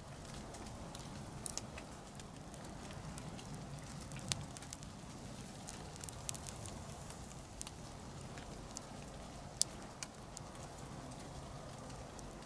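Campfire burned down to embers, crackling faintly with scattered sharp pops over a low hiss; a few pops stand out louder.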